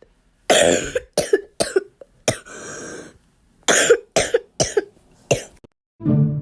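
A person coughing hard in two fits: four coughs, then a long breath drawn in, then five more. It is a real bad cough.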